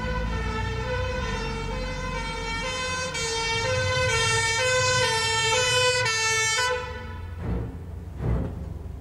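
Ambulance two-tone siren wailing hi-lo, alternating steadily between two notes and growing louder as it approaches, then cutting off about seven seconds in. Deep drum hits follow near the end.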